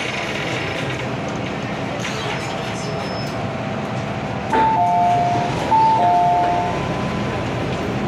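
MTR Kwun Tong line M-Train running with a steady rumble inside the car. About four and a half seconds in, an onboard two-tone chime, a high note then a lower one, sounds twice; this is the chime that comes before a passenger announcement.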